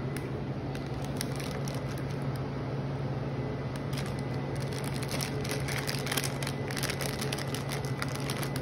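Metal spoon clicking and scraping in a paper cup of soft ice cream, with crackly handling noises that grow busier about halfway through, over a steady low hum.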